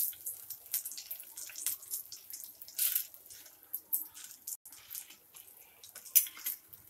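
Crushed peanuts frying in hot oil in a kadai, an irregular sizzle with scattered pops and crackles.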